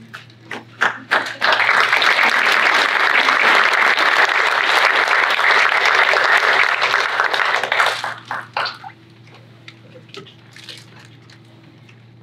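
Audience applauding: a few scattered claps, then steady applause for about six seconds that breaks up into a few last claps and stops.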